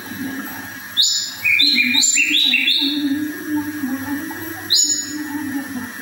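Caged tledekan (Sunda blue robin) singing: runs of short, clear whistled notes, each run stepping down in pitch, about a second in and again near five seconds.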